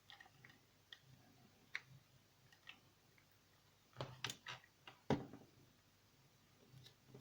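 Faint scattered clicks and taps of small plastic parts being handled while cup blades are glued onto a computer fan, with a louder cluster of taps about four to five seconds in.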